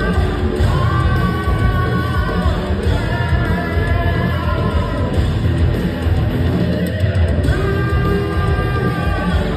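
Live rock band playing loudly, with a heavy drum and bass low end under long held melody notes in phrases of a second or two.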